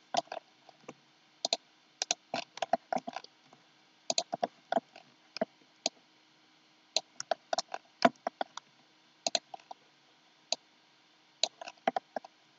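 Computer mouse and keyboard clicking in irregular clusters of short, sharp clicks, with pauses of a second or so between groups.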